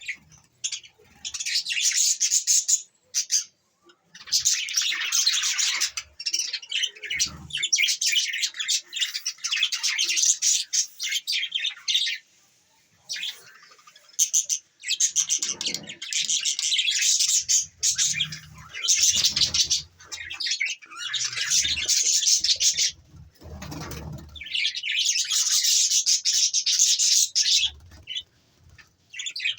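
A flock of pet budgerigars chirping and chattering in dense, high-pitched bursts of a few seconds each, with short pauses between them. A few dull thumps are mixed in.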